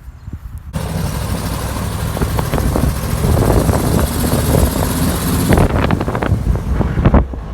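A farm machine's engine running close by, with a steady low beat and many rattling knocks over a hiss. It starts abruptly under a second in and drops away sharply near the end.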